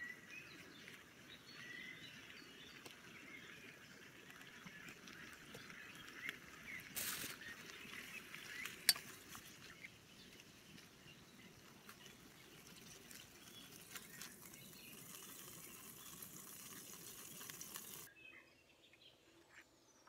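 Faint forest ambience: scattered short bird chirps over a steady hiss, with a couple of knocks from camp cooking gear. It drops quieter about two seconds before the end.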